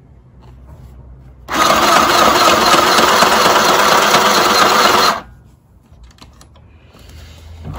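Small electric mini sewing machine running as it stitches cotton fabric: one burst of about four seconds, starting about a second and a half in and stopping suddenly. A few faint clicks follow as the machine is handled.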